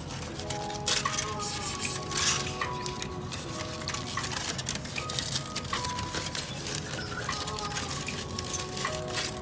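Crumpled aluminium foil crinkling in irregular crackly bursts as it is handled and spread out, over background music with held notes.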